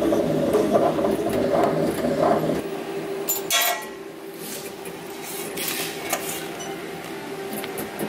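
Quick-Tag pet ID tag engraving kiosk running with a steady mechanical hum as it engraves a metal dog tag. There is a sharp metallic clink about three and a half seconds in, then a few light clicks.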